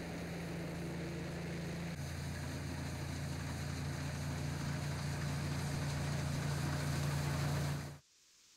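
Massey Ferguson combine harvester running steadily at work, a continuous engine and machinery drone with a steady low hum. The drone shifts slightly in tone about two seconds in and cuts off abruptly near the end.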